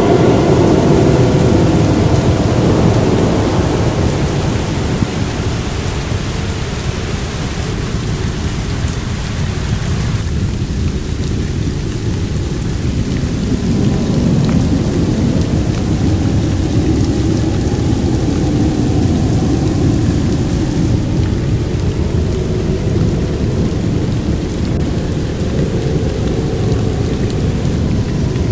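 Heavy rain pouring down steadily onto a flooded street and garden, its sound mostly deep and low.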